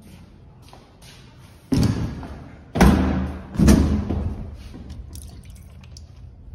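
Three loud thuds about a second apart, each trailing off into a noisy rush that fades.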